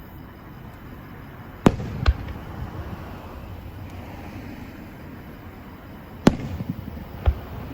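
Fireworks bursting overhead: two sharp bangs close together about one and a half seconds in, then another bang past six seconds with a brief crackle after it, and one more bang near the end.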